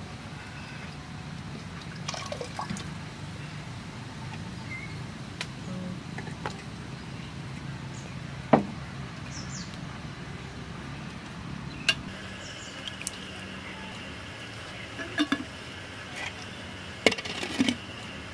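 Cooking at a clay-pot hearth: water poured and sloshed in small vessels, and a wooden spoon stirring and tapping against clay pots. A few sharp knocks stand out, the loudest about eight and a half seconds in, with several more near the end.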